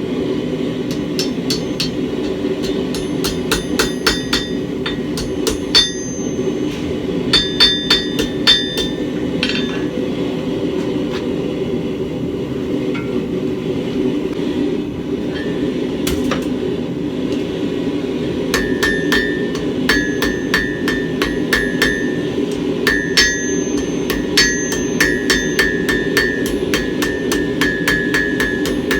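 Blacksmith's hammer striking a heated steel bar on an anvil to round its tip: a run of quick blows with the anvil ringing, a pause of several seconds, then a longer run of blows in the second half. A steady roar from the lit forge runs underneath.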